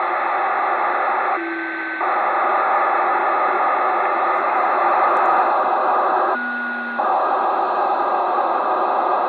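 FUNcube satellite telemetry downlink heard through a Kenwood 2 m all-mode transceiver's speaker: a steady, rough hiss-like buzz of digital data mixed with receiver noise. It drops out briefly twice, about five seconds apart.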